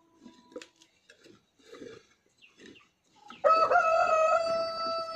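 A rooster crows, a long, steady call that starts about three and a half seconds in and is the loudest sound. Before it there is faint knocking and scraping from a homemade hand pump drill boring into a metal plate.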